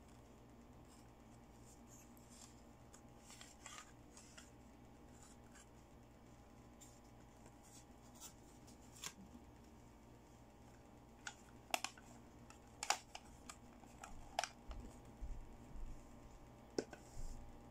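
Hard plastic toy pieces being handled: light clicks and taps as a cupcake-shaped toy makeup compact is moved, closed and set down. The clicks are sparse at first and come more often in the second half.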